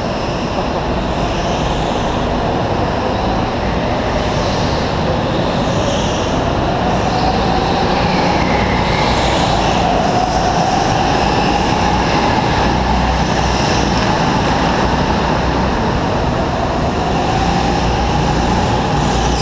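Steady drone of go-kart motors in an indoor karting hall, with a faint whine that slowly rises and falls in pitch.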